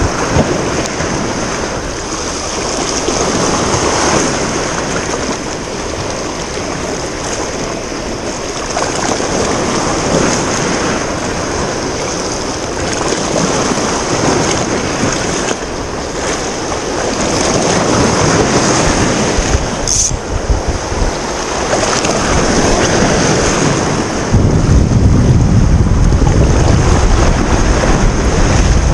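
Sea waves washing and breaking against a rocky shoreline close by, swelling and easing every few seconds, with wind buffeting the microphone, heaviest in the last few seconds.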